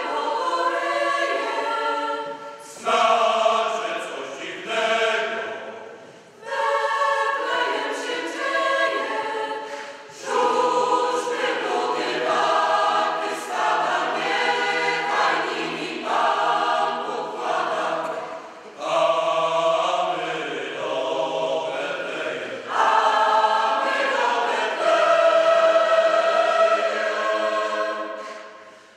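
Mixed choir of women's and men's voices singing together in phrases of a few seconds, each separated by a brief breath pause, the last phrase dying away near the end.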